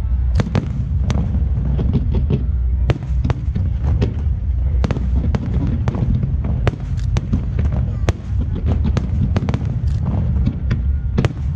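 Aerial fireworks display: shells bursting in quick succession, a dense low rumble broken by many sharp bangs and crackling pops.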